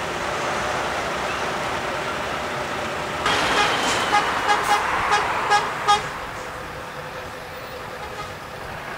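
Trucks passing in a convoy with steady road and engine noise, then a string of about six short truck horn toots between three and six seconds in.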